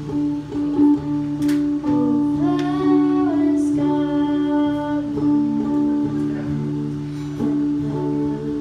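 Amplified acoustic guitar playing a song, with a voice singing over it.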